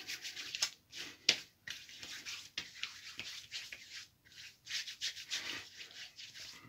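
Hands rubbing after-shave onto a freshly shaved face and neck: a run of short, irregular rubbing strokes on skin with a few sharper pats.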